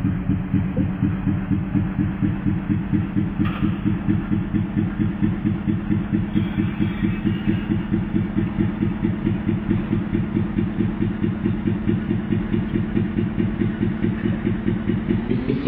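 An engine idling with an even pulse of about five beats a second, its pitch starting to climb near the end as it is revved.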